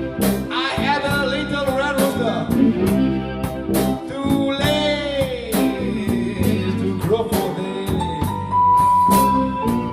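Blues band playing a slow number, with drum kit, bass and electric guitar, and a lead line that bends up and down in pitch. Near the end one high note is held steady.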